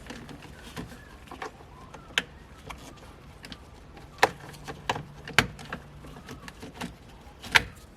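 Scattered sharp plastic clicks and taps from the gear shifter's trim and wire clips being worked loose by hand, with about four louder snaps.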